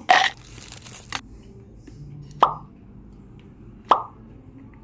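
Close-up eating sounds: a short rustle at the start, then two sharp wet plops about a second and a half apart.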